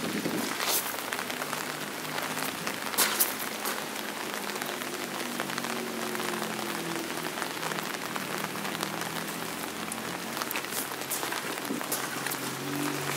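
Steady rain falling, a continuous hiss broken by sharp taps of drops landing close by.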